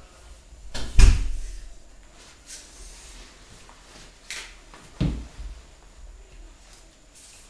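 Knocks and clunks from handling parts at a welded steel frame: a heavy thud about a second in, a sharper clink just after four seconds, and another thud about five seconds in.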